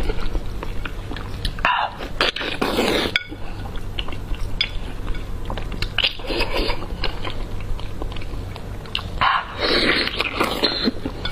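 Close-up eating sounds: wet chewing and biting into a large slab of chili-coated pork belly, with lots of small mouth clicks and louder bites or mouthfuls about two, six and nine seconds in.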